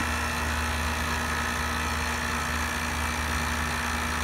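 Electric vacuum pump running steadily with a constant low hum, pulling vacuum on a milking-system pulse tank; a loose drain cap is leaking, so the vacuum is slow to build.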